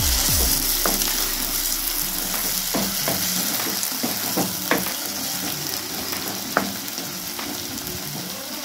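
Onion and tomato puree sizzling in hot oil in a kadai while being stirred with a wooden spatula, with a few short knocks and scrapes of the spatula against the pan.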